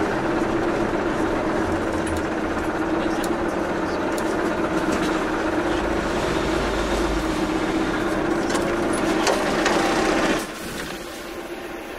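Subway train running through a tunnel, heard from inside the car: a steady rumble and hiss with a steady motor hum, dropping abruptly to a quieter noise near the end.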